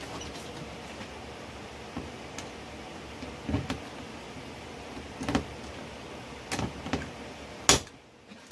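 Hand pop-rivet tool setting rivets through ATV body plastic: a series of separate sharp clicks and clunks as the handles are squeezed, with the loudest snap near the end, as the rivet's mandrel breaks off.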